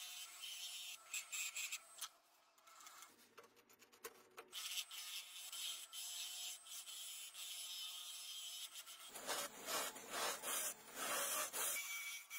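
Woodturning chisel cutting a spinning wood blank on a lathe, a scraping hiss of the tool against the wood. It drops to a quieter lull about two to four seconds in and grows louder and fuller near the end as the tool hollows into the end of the blank.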